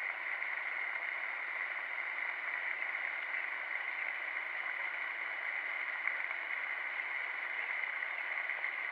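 Floating pond fountain spraying water that falls back onto the surface: a steady splashing hiss.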